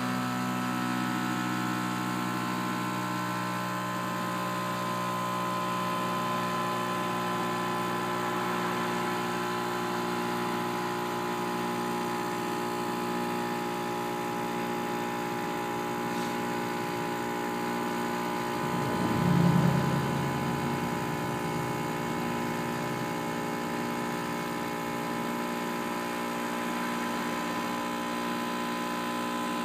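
A motor running steadily, a hum made of many held tones, swelling briefly and louder about 19 to 20 seconds in.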